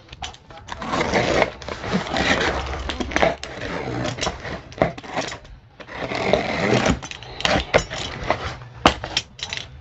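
Utility knife slitting along the top of a long cardboard box: a rasping cut in long stretches with a short break just past the middle. Sharper clicks and knocks of the cardboard come near the end.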